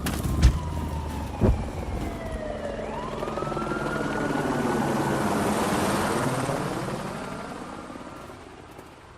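A motor vehicle passing by: its noise swells to a peak about six seconds in and fades away, with a whine that falls in pitch over the first three seconds and two sharp knocks near the start.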